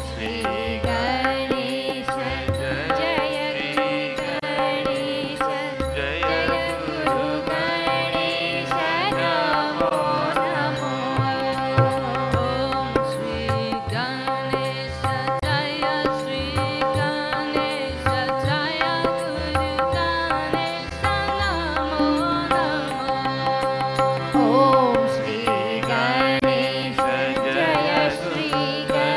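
Indian devotional song: a singer's wavering melody over a steady drone, with a hand drum keeping the rhythm.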